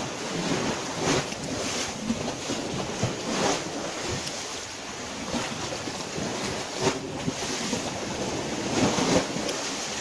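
Small Mediterranean waves washing onto the shore in soft surges every few seconds, with wind noise on the microphone.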